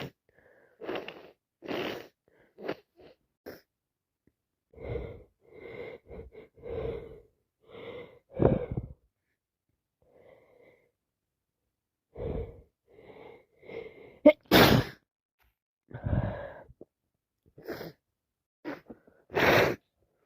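A person with a head cold sneezing, in a string of short breathy bursts about one a second. The loudest, sharpest sneeze comes about two-thirds of the way through, and another strong one near the end.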